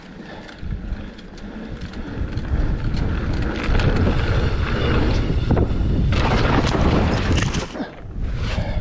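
Mountain bike riding fast down a rough, rocky trail: wind buffeting the helmet or chest camera microphone, tyres rolling over dirt and rock, and the bike rattling with repeated knocks over bumps, building from about two seconds in.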